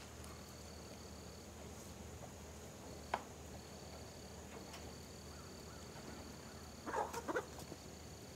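Faint insect trilling: one steady high buzz with a lower trill repeating in roughly second-long phrases separated by short gaps. A single sharp click about three seconds in and a short cluster of rattling clicks about seven seconds in come from the poultry netting and its string being handled.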